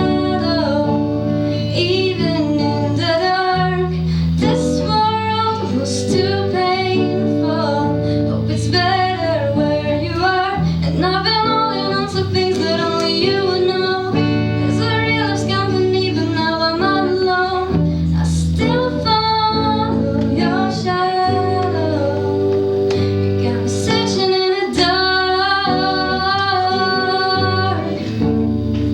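A female voice singing a melody over guitar accompaniment.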